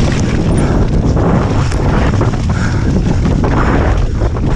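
Loud, steady low rumble of wind buffeting an onboard camera's microphone as a downhill mountain bike descends a rough dirt trail at speed, with tyre noise and the bike rattling over bumps.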